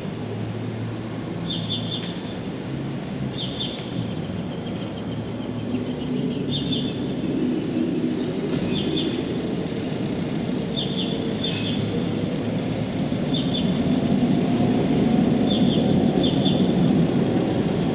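A bird repeating short, high chirps every second or two over a steady low rumble that grows louder toward the end.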